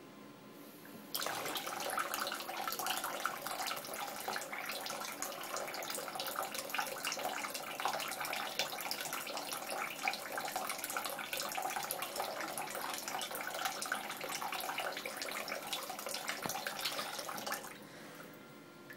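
Water from a bathroom sink mixer tap, turned on about a second in: a thin stream running and splashing onto the basin's metal plug drain, then stopping abruptly near the end.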